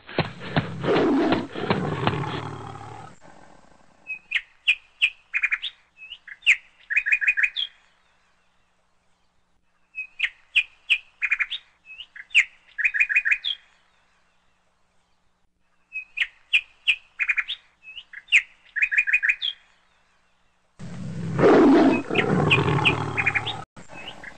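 A tiger roar sound effect for the first few seconds, then a run of short, high chirps that repeats three times in near-identical phrases, then another loud roar starting suddenly near the end.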